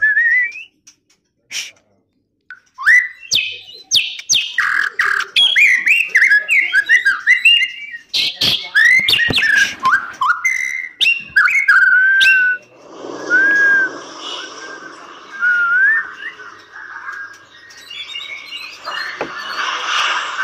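White-rumped shama singing a fast run of short, varied whistled phrases that slide up and down, broken by sharp clicks. About two-thirds of the way through the song thins to a few single whistles while a steady rushing noise comes up beneath it.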